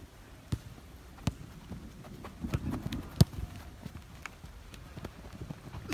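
Futsal play: irregular taps and knocks of players' shoes on the court and the ball being kicked, with one sharp knock about three seconds in.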